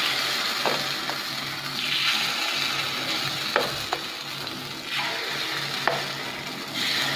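Rice and urad dal batter sizzling as it is poured into the hot, oiled cavities of an appe pan. The hiss swells several times as each cavity is filled, with a few light clicks through it.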